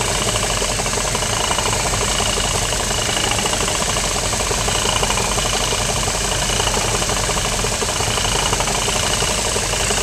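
1953 Cadillac V8 idling steadily, heard close up under the hood, with its clutchless factory air-conditioning compressor turning along with it, a fast even mechanical ticking running through the sound.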